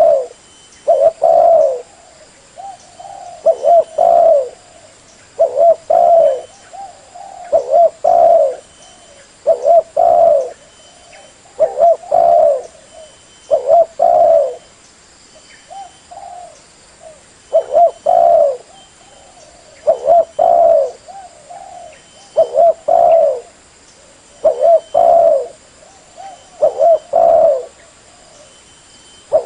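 Spotted dove (derkuku) cooing: short phrases of a few low coo notes, repeated about once every two seconds.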